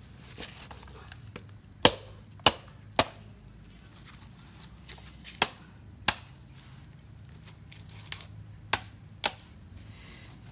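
A machete (parang) chopping into meat and bone, about eight sharp hacks in irregular groups of two or three.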